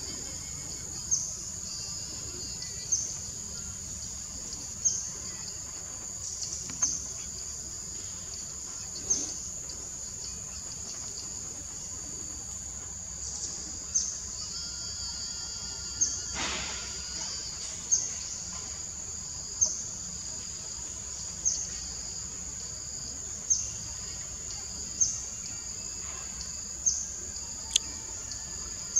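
Steady high-pitched drone of a forest insect chorus, with a short sharp chirp standing out about every two seconds and a brief bird twitter about halfway through.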